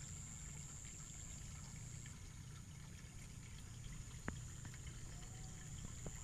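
Faint creek-side ambience: a low rumble and a thin, steady high whine, with a few faint ticks and small water trickles.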